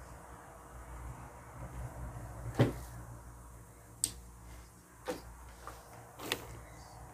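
Objects being handled and put down: four short, sharp knocks, the loudest about two and a half seconds in, over a low steady hum.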